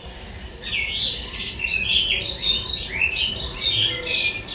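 Birds chirping: a rapid, busy run of short, high chirps that starts about half a second in and keeps going.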